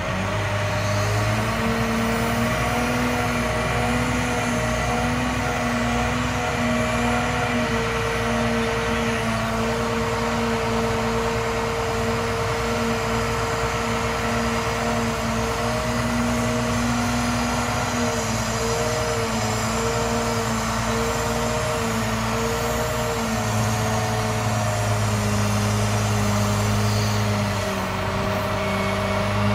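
The International 4300's MaxxForce DT inline-six diesel engine runs steadily, powering the Altec digger derrick's hydraulics as the boom is retracted and lowered. Its steady drone shifts slightly in pitch a few times as the hydraulic load changes.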